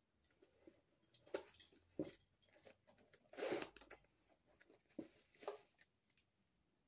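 Quiet handling of a canvas belt bag and a white cloth: a few light knocks, with a short rustle about midway.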